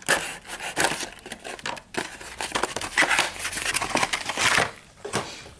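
Foil wrapper of a Yu-Gi-Oh! booster pack crinkling and crackling as it is handled in the hands, dying away shortly before the end.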